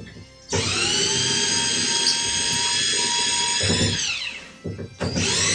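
DeWalt cordless drill boring into a fiberglass tub-shower surround: a steady motor whine for about three seconds that falls in pitch as the trigger is released. A second run starts near the end.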